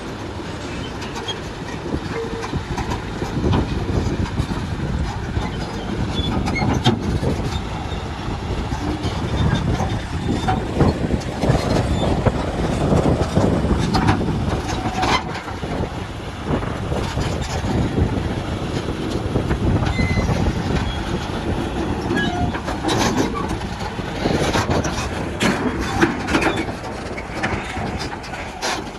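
Komatsu D375A crawler bulldozer moving on its steel tracks: a heavy diesel rumble with the tracks clanking and squealing, and sharp metallic clanks that come more often near the end.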